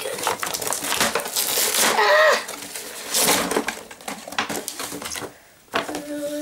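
A toy's cardboard box and clear plastic window being torn and crumpled open by hand, a loud crackling and ripping. A child's voice comes in briefly about two seconds in and again near the end.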